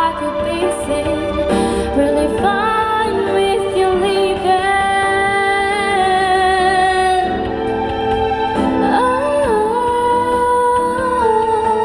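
A woman singing a song over musical accompaniment. She holds several long, sustained notes with vibrato, sliding up into one held note near the end.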